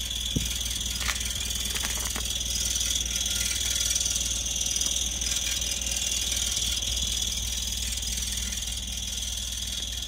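2003 Toyota Yaris idling, with a steady high-pitched chirping squeal over the low engine hum, heard from under the car at the rear; the owner does not know its cause.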